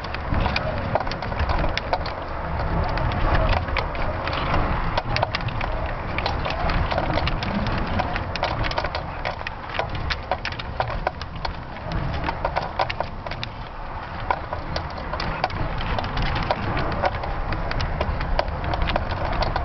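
Dense, irregular crackling and ticking from the balloon payload as it swings just after launch, over a low rumble of wind on the microphone.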